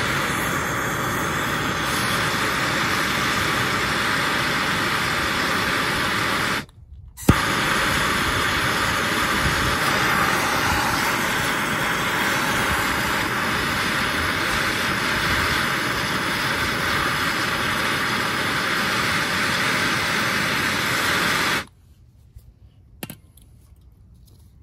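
Handheld Bernzomatic gas torch burning with a steady roar, heating rusted, seized brake dust shield screws on a steel steering spindle to free them. The flame cuts out for a moment about seven seconds in and comes back with a sharp click, then shuts off near the end.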